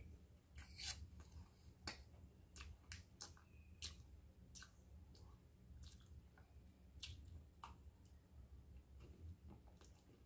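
Quiet close-up eating sounds: scattered sharp crisp clicks of a dry biscuit stick being broken, bitten and chewed, with a table knife working cream onto it.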